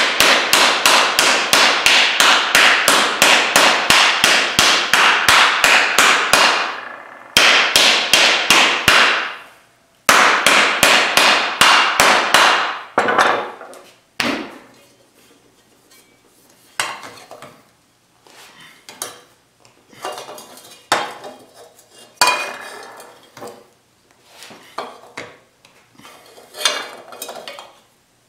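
Fast hammer blows, about six a second, on a 16-gauge cold-rolled steel fender panel held over a sandbag, in three runs that end about 13 seconds in. After that come scattered knocks and clinks as the steel panel and tools are handled.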